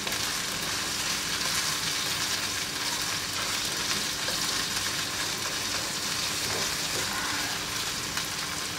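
Coconut milk curds sizzling steadily in their own oil in a nonstick wok, stirred and scraped continuously with a plastic spatula. This is latik being cooked down toward golden brown.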